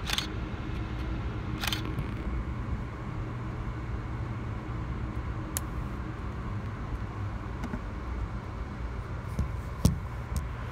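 Steady low rumble of a moving Amtrak Lake Shore Limited passenger car, heard from inside, with a few sharp clicks; the loudest click comes near the end.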